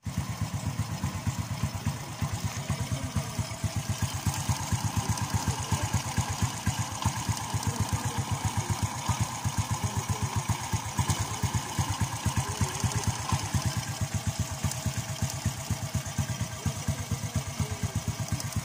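Honda XRM's single-cylinder four-stroke engine idling steadily, its exhaust puffing evenly through a freshly welded elbow pipe.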